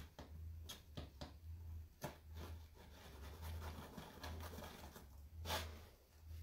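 Faint handling sounds: a few soft clicks and light scrapes as a knife is pushed into a freshly baked sweet bread in its metal pan to test whether it is done, with a slightly louder rustle near the end, over a low steady hum.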